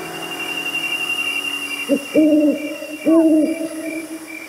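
An owl hooting: a short hoot and a longer one about two seconds in, then another hoot a second later. Behind it runs a steady high chirring with a faint regular pulse.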